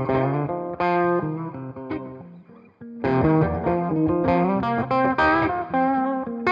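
1980 Greco EG-500 electric guitar with its original Maxon humbucking pickups, played through a Headstrong Royal Reverb amp: a phrase of chords and single notes that is left to ring out and fade about two seconds in, then playing starts again about three seconds in with a run of notes.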